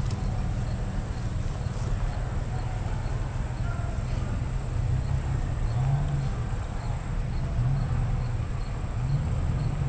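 Open-air ambience while waiting to fire: a steady low rumble with a thin steady high whine above it and a few faint distant voices. No shot is fired.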